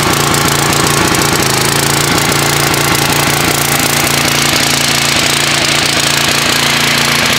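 Troy-Bilt portable generator's gasoline engine running steadily, supplying a 240 V submersible well pump. Its engine note shifts slightly about a second and a half in.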